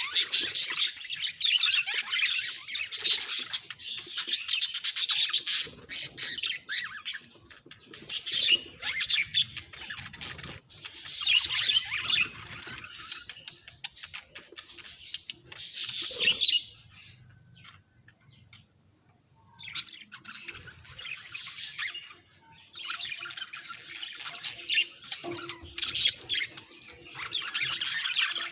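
Budgerigar chattering and chirping in quick, scratchy runs of notes, with a short lull a little past the middle.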